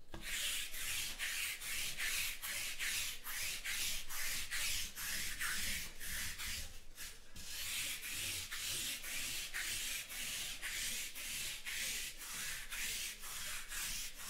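Rhythmic scratchy rubbing strokes, about three a second, pausing briefly about seven seconds in.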